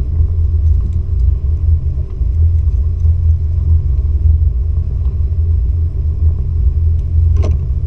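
Yamaha WaveRunner jet ski's engine idling with a steady low rumble, and a single brief knock near the end.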